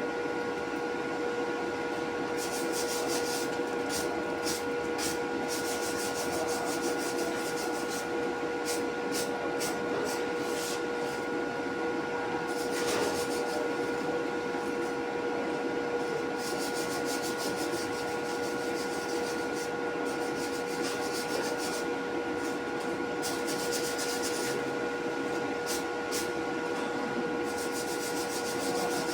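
Steady electrical hum of a welding machine, with bursts of sizzling arc crackle several times, each lasting a second or a few seconds.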